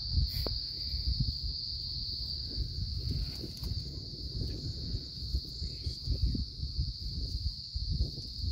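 Steady high-pitched insect chorus, an unbroken even drone, over irregular low noise.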